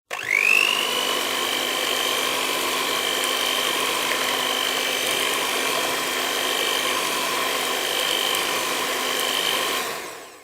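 Small electric motor of a kitchen appliance spinning up with a quickly rising whine, then running steadily at one high pitch over a hum and whirring noise, and switching off near the end.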